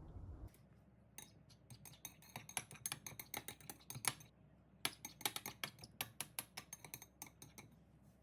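Knife chopping quickly on a cutting board, two runs of rapid strokes about five or six a second with a short pause between them.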